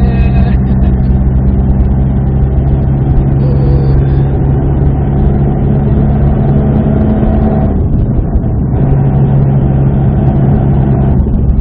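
Subaru WRX STI's turbocharged EJ20 flat-four engine pulling at steady revs, heard from inside the cabin with road noise. The steady drone breaks off briefly about eight seconds in, then picks up again.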